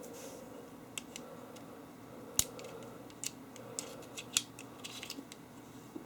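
Craftsman Auto-Load Slide utility knife's slider and blade mechanism clicking as it is worked back and forth, a handful of sharp clicks, two of them louder. The mechanism is jammed and will not load the new blade.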